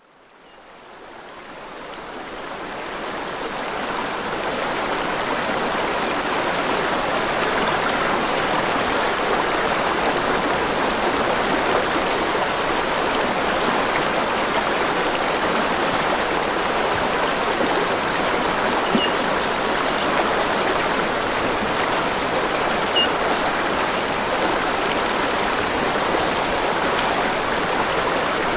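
Steady rush of flowing stream water that fades in over the first few seconds. A high, rapid chirping repeats through the first half, and two brief chirps come later.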